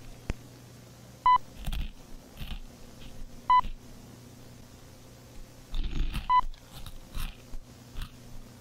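Short electronic beeps, each a clean high tone, three times about two to three seconds apart, over a low steady hum with a few faint clicks.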